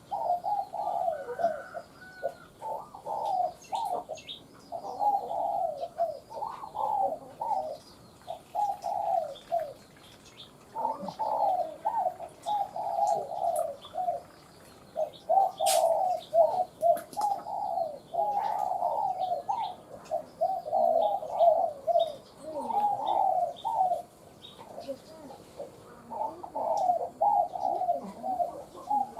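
Spotted dove cooing over and over in short repeated phrases, the call of a caged decoy bird used to lure wild doves; small birds chirp faintly in the background.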